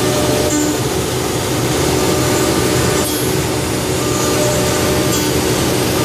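CNC router spindle running with its end mill cutting into a solid wood block: a loud, steady machine noise with a few held tones over the hiss of the cut, even throughout.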